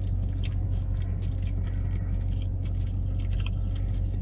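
A person chewing and biting into fried chicken, with many small wet mouth clicks and smacks, over a steady low hum inside a car.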